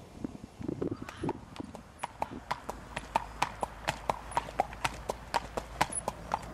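Hoofbeats of a ridden grey horse trotting on a wet paved lane: sharp, even clops at about five a second, starting about two seconds in.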